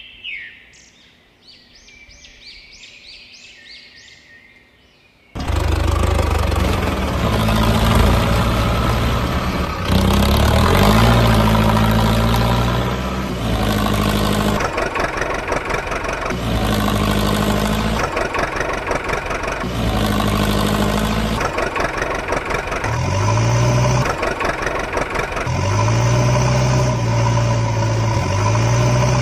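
A few seconds of high chirping. Then, about five seconds in, a loud truck engine sound starts abruptly and revs repeatedly, rising and falling in short bursts. It is an engine sound effect laid over the toy truck scene.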